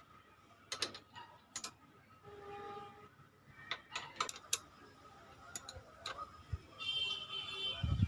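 Scattered metallic clicks and taps of hand tools and screws on the jet pump's parts as it is being put back together and tightened, with two brief squeaky tones.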